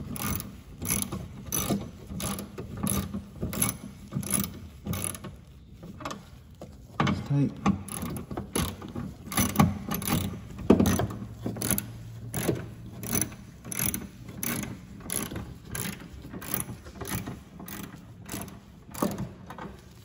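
Socket ratchet clicking in repeated runs, a few clicks a second, as bolts are tightened, with a short lull about six seconds in.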